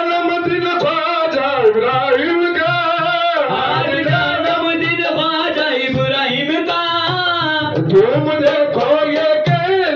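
Devotional Sufi song: singing over tabla accompaniment, with a steady drum pattern beneath the melody.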